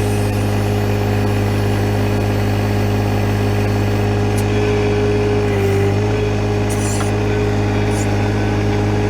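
John Deere 1025R compact tractor's three-cylinder diesel engine running steadily while the backhoe works, with a steady whine that dips briefly about six seconds in. A few short high squeaks come through near the middle and end.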